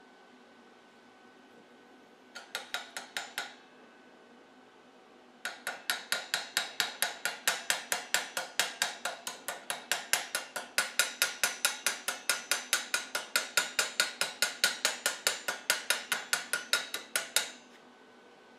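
Chipping hammer knocking slag off fresh 7018 stick-weld beads on a steel plate: a short run of sharp metal taps, then a long run of rapid, evenly spaced taps that stops shortly before the end.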